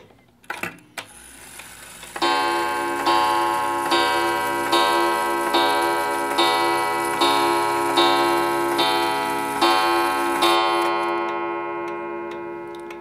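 A 31-day wall clock's striking mechanism strikes its chime about eleven times, a little under a second apart, each stroke a full ringing tone. After the last stroke the ringing slowly dies away. A couple of light clicks come just before the striking begins.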